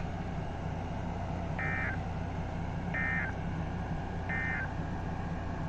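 Emergency Alert System end-of-message data tones over NOAA Weather Radio: three short, high, buzzy bursts about a second and a half apart, over steady radio hum and hiss. The three bursts signal the end of the alert message.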